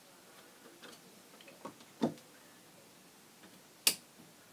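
A few scattered small clicks and taps of metal hardware being handled inside the receiver's chassis; the sharpest come about two seconds in and near the end.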